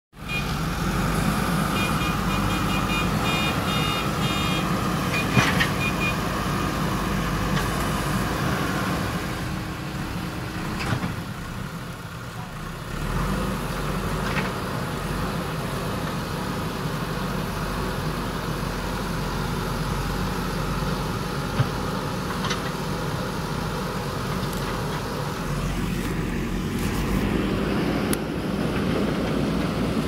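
JCB backhoe loader's diesel engine running steadily under load while it digs in mud. The engine eases off about ten seconds in and picks up again a few seconds later, with a few sharp knocks from the machine.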